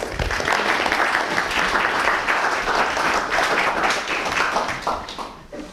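A roomful of people applauding: dense clapping that starts all at once and dies away about five seconds in.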